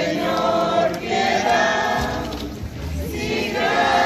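A crowd of people singing a hymn together in slow phrases with long-held notes.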